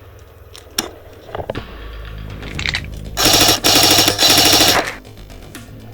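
Airsoft rifle fired on full auto: two quick bursts of rapid shots about three seconds in, lasting about a second and a half together. A few lighter clicks come before them.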